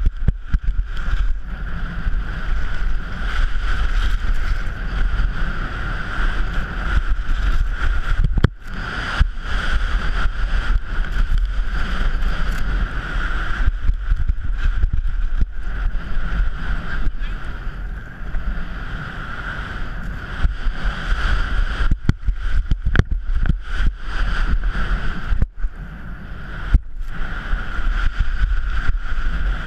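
Wind rushing and buffeting over a GoPro's microphone as a skier runs fast down a ski cross course, mixed with the rumble and scrape of skis on packed snow. The rushing noise drops out sharply for a moment twice.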